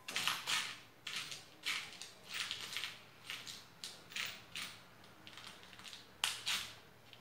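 A series of short rustling, crinkling handling noises, about one or two a second, with a sharper one about six seconds in.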